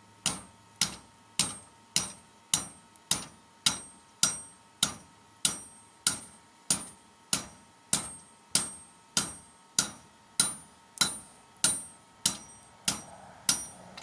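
Blacksmith's hammer striking hot steel in a steady rhythm, a little under two blows a second, each with a short high metallic ring, as a mower blade is flattened out.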